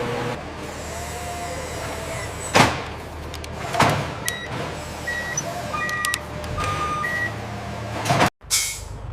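Factory machinery running with a steady hum, two loud swishing sweeps, then a run of short electronic beeps. The sound drops out abruptly near the end and comes back with a hiss.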